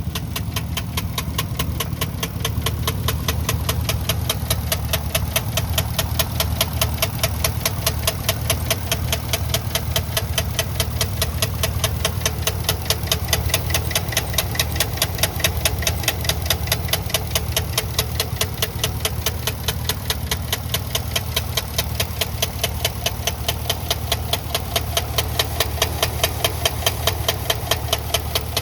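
2013 Chevrolet Caprice engine idling steadily with a sharp, regular knock several times a second: an internal engine knock.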